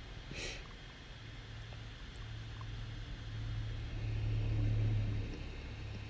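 A low mechanical hum, like a motor, that grows louder toward about five seconds in and then drops away, with a brief hiss about half a second in.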